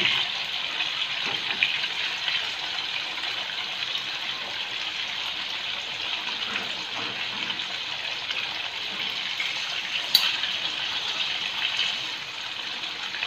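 Fish pieces sizzling as they shallow-fry in hot ghee: a steady crackling hiss. A single sharp click comes about ten seconds in.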